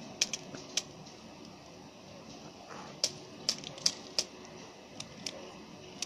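Sharp, irregular clicks of a white zebra finch's beak pecking at seeds in a plastic feeding tray: a few near the start, then a cluster from about three seconds in.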